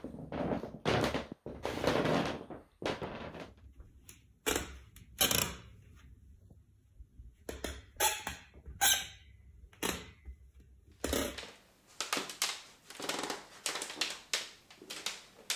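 Wooden floors creaking and groaning under footsteps, a drawn-out rubbing sound like rubbing a balloon that comes with each step, roughly once a second. This groaning is the sign of a problem in the subfloor rather than in the floorboards themselves.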